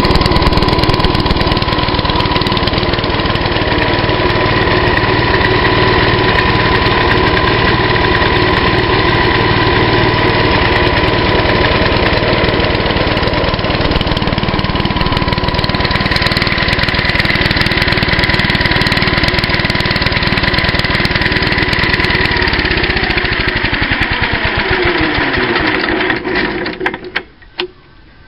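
Freshly overhauled 1947 J.A.P. Model 5 air-cooled single-cylinder engine running steadily and well. About 22 seconds in it is shut off and runs down, its pitch falling until it stops near the end.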